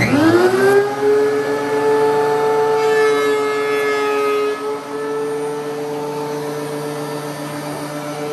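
DeWalt DW735 thickness planer switched on: its motor whines up to speed within about a second, then runs steadily with the cutterhead and built-in chip-ejection fan blowing through the ducting.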